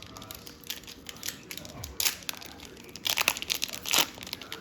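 A trading-card pack wrapper being torn open and crinkled by hand: irregular crackling with louder bursts about two, three and four seconds in.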